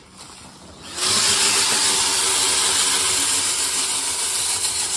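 Power drill spinning a rotary dryer vent cleaning brush on extension rods through a foil flex duct hose, the brush scrubbing lint from the inside of the hose. It starts about a second in and runs steadily for about four seconds.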